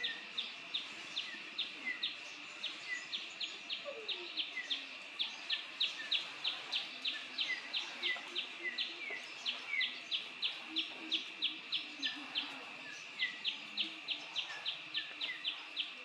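High-pitched animal calls: a steady high drone pulsing evenly about three times a second, with short falling chirps scattered through it.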